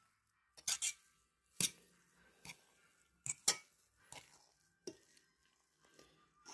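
A utensil knocking and scraping against a bowl as cheese is mixed into mashed potatoes: about eight sharp, irregular clinks a half second to a second apart.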